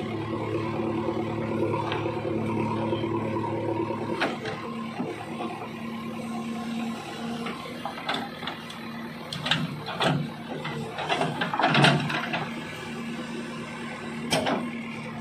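JCB 3DX backhoe loader's diesel engine running steadily as the backhoe digs. In the second half there are irregular knocks and clatter of earth and stones tumbling from the bucket, loudest about three-quarters of the way through.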